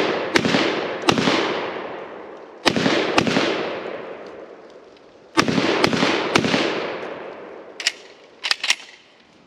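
Benelli M4 12-gauge semi-automatic shotgun firing rapid strings of two or three shots about half a second apart, each string trailing off in a long fading echo. A few lighter clicks come near the end.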